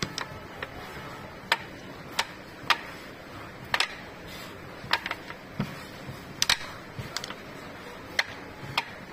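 Pucks on a wooden string hockey board clacking sharply and irregularly, roughly two a second, as they are shot with the elastic band and strike the wooden rails and each other.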